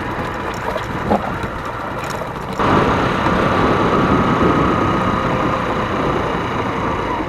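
Motorcycle engine running on the move, a steady mechanical drone over a noisy rush; it gets abruptly louder about two and a half seconds in.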